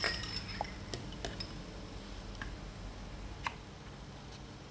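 Light metallic clicks and taps as seal housings and gaskets are fitted onto the plunger rods of a Falch 500 bar high-pressure pump. The first click, right at the start, is the loudest and rings briefly. Several fainter clicks follow at irregular spacing.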